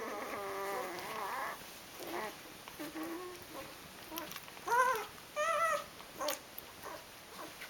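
Eight-day-old Rhodesian Ridgeback puppies whimpering and squealing as they nurse: a drawn-out whine at the start, a few short squeaks, then two louder rising-and-falling squeals about five seconds in.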